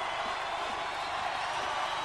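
Large concert crowd cheering steadily, with a few whistles on top.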